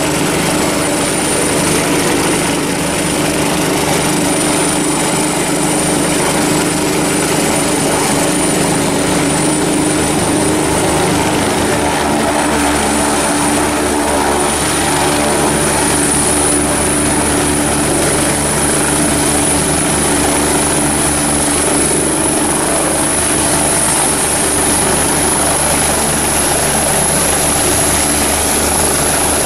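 Helicopter turbine engine and rotor running on the ground, with a steady rotor and engine sound and a high turbine whine that climbs slowly in pitch as the rotor spins up.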